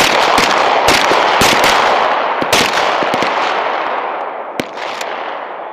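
M17 9 mm pistols firing a string of shots in quick, irregular succession on a firing line, overlapping and echoing, the shots thinning out after about four seconds.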